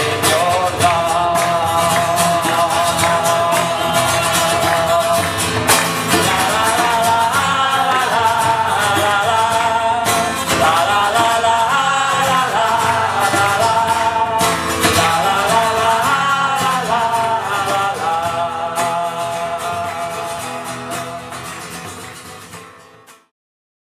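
Music with singing over strummed acoustic guitar, fading out near the end.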